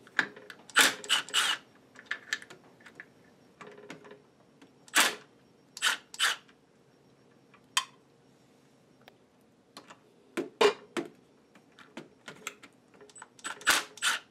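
Compact Milwaukee M12 FUEL cordless impact wrench run in short bursts, each under half a second, on the nuts of the milling machine's change gears, loosening them for removal. There are about a dozen bursts, several seconds apart in places.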